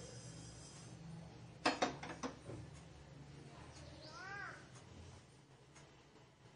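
A stainless steel pan clattering several times against the gas stove's grate as it is shaken and set down. A little past the middle comes a single harsh call whose pitch rises then falls.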